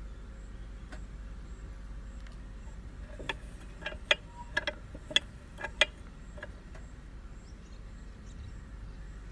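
A quick run of about ten sharp clicks and taps, clustered over two or three seconds near the middle, over a low steady hum.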